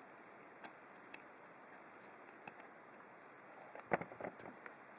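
A few faint clicks, then a short burst of clicking and knocking about four seconds in, as a small brass padlock is handled and checked.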